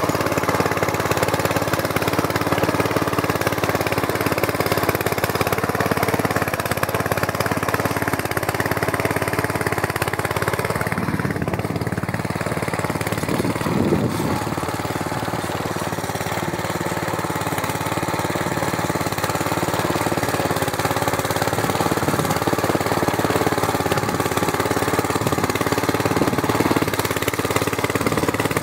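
Walk-behind tractor's small single-cylinder petrol engine running steadily under load as its disc hillers cut through soil, easing slightly a little past halfway.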